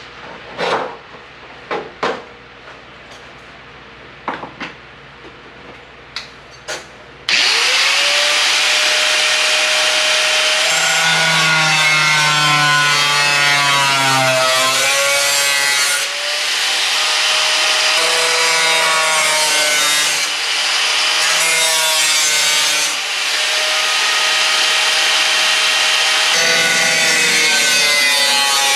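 A few knocks and clicks of handling, then about seven seconds in a power cutting tool starts and runs continuously under load, cutting through material. Its whine sags and recovers in pitch as it bites.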